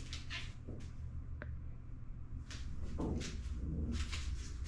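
Several soft knocks and rustles, about one a second, over a steady low hum.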